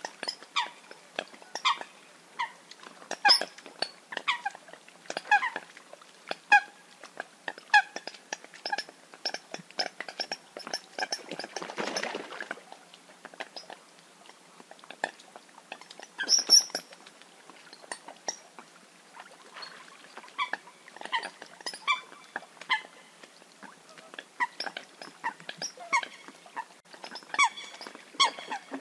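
Eurasian coots giving fight calls: a rapid, irregular series of short, sharp notes, with a brief rushing noise about twelve seconds in.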